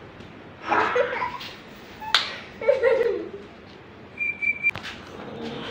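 A short whistled note, held steady for about half a second near the end, with a few brief voice sounds and a sharp click earlier on.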